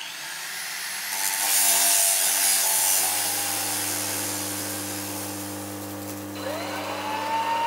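Metalworking noise from an angle grinder and arc welding: a steady hiss over a low, steady hum. About six seconds in, a whine rises and then holds.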